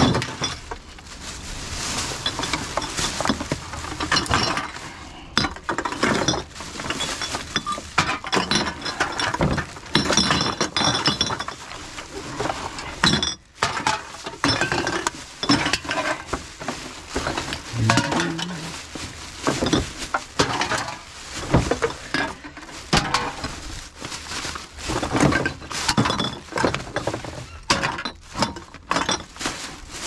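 Empty aluminium cans and glass and plastic bottles clinking and clattering against each other as they are handled in a vehicle's load tray, a continuous run of uneven knocks and clinks.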